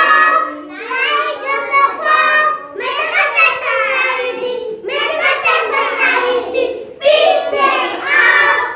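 A group of children singing a rhyme together, in phrases of about two seconds with short breaths between.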